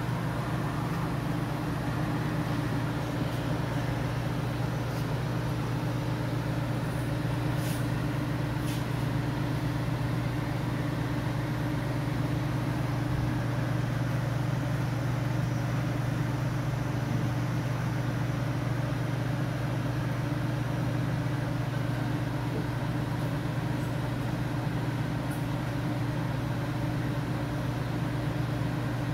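Lincoln conveyor pizza oven running, its blower fans giving a steady low hum.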